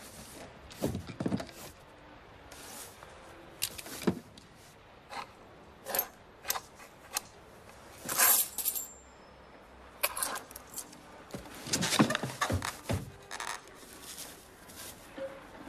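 Coins clinking and sliding on a wooden tabletop, with scattered sharp knocks and clicks. The loudest sound is a brief scraping rush about eight seconds in.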